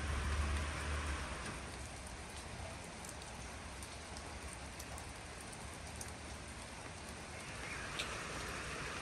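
Steady rain falling, with a low rumble in the first second and a sharp click about eight seconds in.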